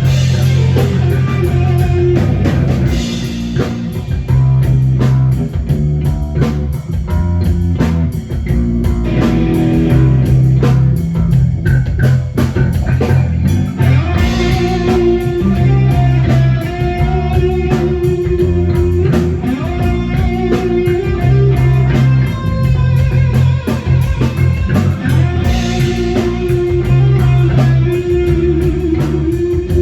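Rock band playing live: electric guitar over bass guitar and a drum kit keeping a steady beat.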